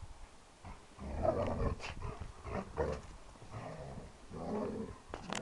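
Dogs growling in rough play: a lurcher and a German shorthaired pointer puppy, in several short bursts starting about a second in.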